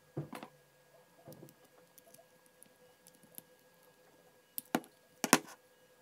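Light handling clicks and taps of small 3D-printed plastic parts as a tiny metal coil spring is hooked onto a joystick trim lever. A few soft clicks come near the start, and a cluster of sharper, louder clicks comes near the end.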